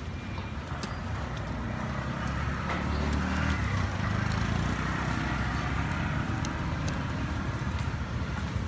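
A motor vehicle engine running, a steady low rumble that grows louder about three seconds in.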